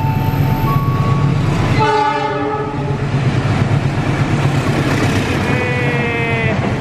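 Diesel locomotive of an empty cement freight train running through without stopping, its engine running steadily, with a loud horn blast of about a second some two seconds in. The wagons roll past after it, with another shorter, higher tone near the end.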